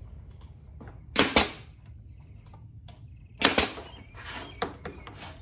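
Nail gun firing two shots into plywood, each a sharp double crack, about a second in and again about three and a half seconds in, with a lighter click between handling noises.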